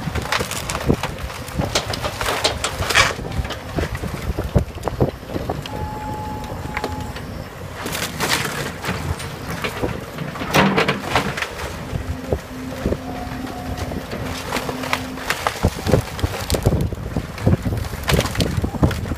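Hyundai excavator demolishing a wood-frame house: its bucket and thumb crunch into the debris pile and wood cracks and splinters in repeated clusters, over the running engine and hydraulics. Wind buffets the microphone.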